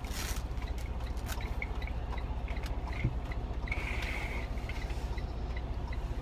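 Semi-truck's diesel engine idling, a steady low rumble heard inside the cab, with a faint quick ticking over it. There is a brief rustle at the start and a single knock about three seconds in.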